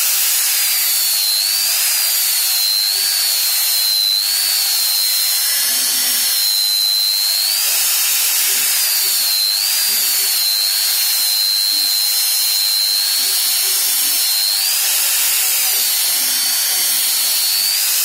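Belt grinder running, its abrasive belt grinding the bevels of a battered axe head: a steady, loud high hiss with a whine that wavers up and down in pitch now and then.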